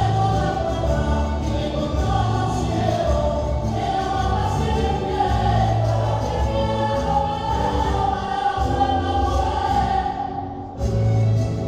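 Music with singing voices over a steady bass line; it dips briefly near the end, then comes back.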